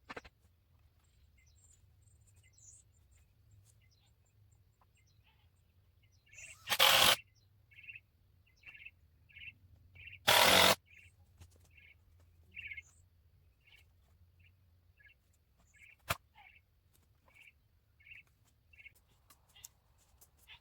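A bird repeating a short chirp about once or twice a second from around a third of the way in. Two loud half-second noises break in near 7 and 10 seconds, and there is a sharp click near 16 seconds.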